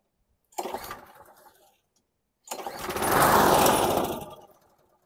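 Briggs & Stratton engine of a 1998 Craftsman mower turning over on two recoil pull-start attempts. The first is a short pull about half a second in; the second, about two and a half seconds in, is longer and louder. The engine does not keep running, a no-start that the owner puts down to the carburettor.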